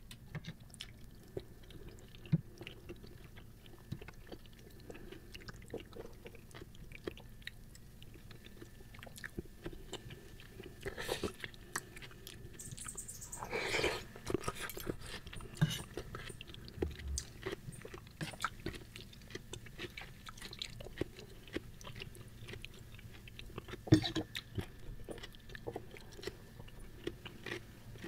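A person eating seblak, chewy wet crackers and macaroni in spicy broth: soft wet chewing with many small smacks and clicks. A longer breathy stretch comes about halfway through, and a single sharp click a few seconds before the end.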